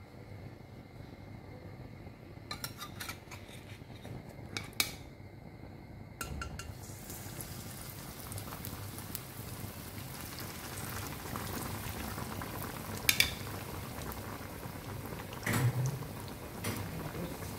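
Breaded bread slice deep-frying in hot oil in a steel kadai. After a few clinks, a steady sizzle starts about six seconds in as the slice goes into the oil. A metal spatula knocks against the pan a couple of times near the end.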